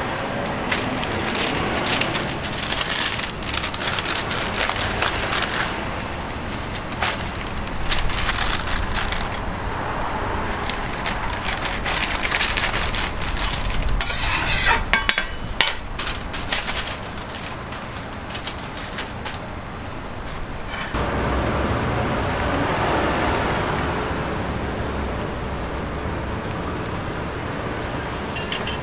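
Metal spatula and utensils clattering and scraping on a flat-top griddle, then paper wrapping crinkling as the toast sandwich is bagged, about halfway through.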